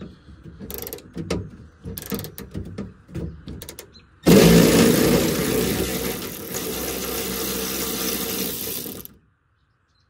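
A few seconds of scattered clicks and knocks as a socket on an extension is worked onto a door-handle bolt, then a cordless electric ratchet runs for about five seconds, spinning the 7/16 in bolt out, and stops suddenly.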